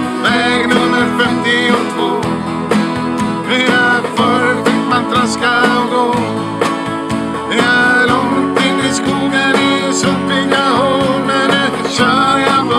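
Two men singing a country-style folk song in Swedish, accompanied by a strummed acoustic guitar and held chords on a keyboard.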